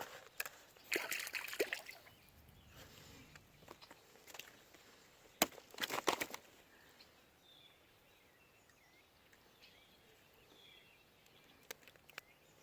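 Water sloshing and splashing at a kayak's side in two short bouts, about a second in and again around five to six seconds in, with a sharp knock at the start of the second bout. Quieter lapping water follows.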